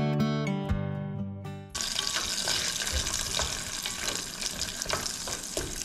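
Acoustic guitar music fades out, and about two seconds in a steady sizzle starts: corn kernels frying in melted butter in a stainless steel pot, with a few light knocks from a wooden stick stirring them.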